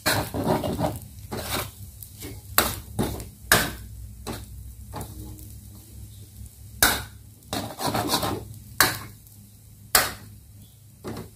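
Metal spatula scraping and knocking against a wok while turning egg fried rice, in about a dozen irregular strikes with quieter gaps between.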